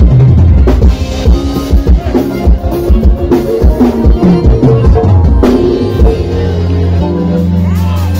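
A live band playing loud through a PA, with a drum-kit beat under electric guitar and accordion. About six seconds in the drumming stops and the band holds a long sustained chord.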